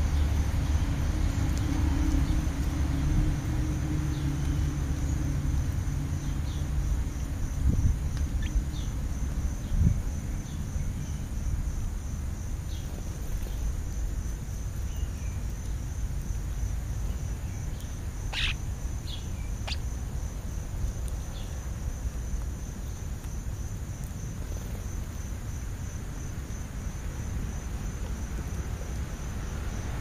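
Outdoor lawn ambience: a steady, evenly pulsing insect trill over a low rumble of traffic and wind, with a few short bird chirps, the clearest about 18 to 20 seconds in. Two soft low thumps come about 8 and 10 seconds in.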